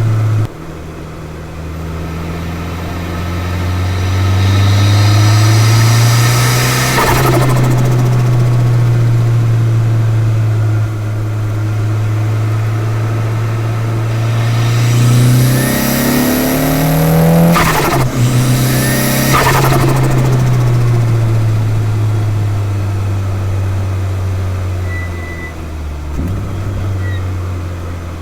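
Turbocharged 4G63 four-cylinder of a 1999 Mitsubishi Lancer Evolution VI pulling through the revs twice. A high rushing release from the Blitz Super Sound recirculating blow-off valve comes on lift-off, about seven seconds in and again near eighteen seconds, as the engine note drops.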